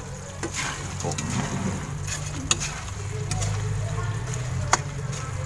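Metal ladle stirring and scraping in a steel wok of simmering tomato and shrimp-paste sauce with fried dried anchovies, with a few sharp clinks of the ladle on the wok, the loudest near the end, over a steady low hum.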